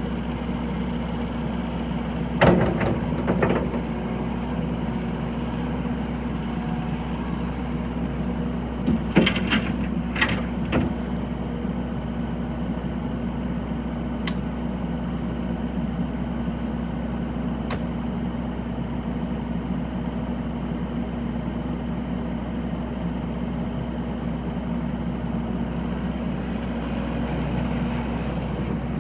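Kubota SVL90-2 compact track loader's diesel engine running steadily at idle, with a few sharp metallic knocks from the machine about two seconds in and again around nine to eleven seconds in.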